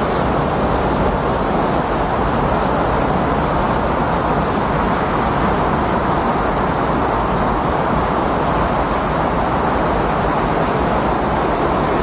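Recorded windstorm: a steady, even rush of wind noise with no gusts or breaks.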